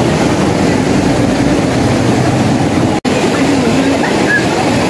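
Steady rush of a shallow, fast stream flowing over stones, with a small cascade in it. The sound breaks off for an instant about three seconds in, then carries on as before.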